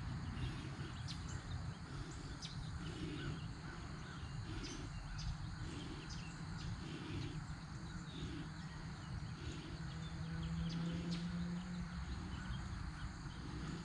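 Outdoor field ambience: low wind rumble on the microphone, soft regular thuds about every two-thirds of a second, and faint high chirps scattered throughout.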